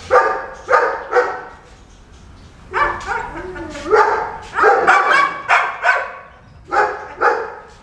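Dogs barking: about a dozen short, sharp barks in uneven clusters, with a pause of more than a second around two seconds in.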